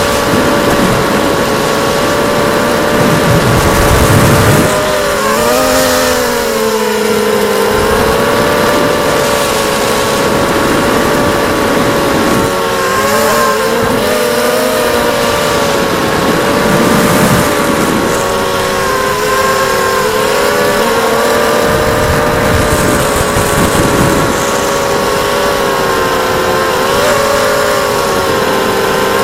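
ZMR250 FPV racing quadcopter's brushless motors and propellers whining steadily, the pitch dipping and rising as the throttle changes, with bouts of low rumble coming and going.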